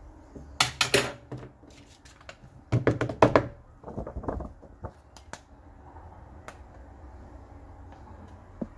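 Stiff sand-painting card handled and tapped on a tabletop to shake off loose coloured sand: a quick cluster of knocks and clicks about half a second in, another about three seconds in, then fainter handling and a single knock near the end.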